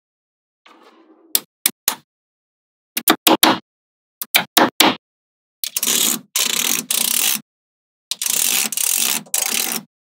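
Magnetic balls snapping together in sharp single clicks and quick little runs of clicks. These give way in the second half to two longer spells of continuous clattering, each about two seconds, as many balls rattle against each other at once.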